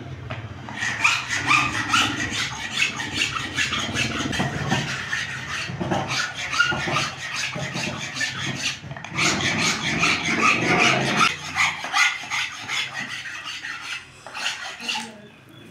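Long steel blade scraping and shaving a wooden spoon blank in quick repeated strokes. The strokes pause briefly about nine seconds in, then resume and thin out near the end.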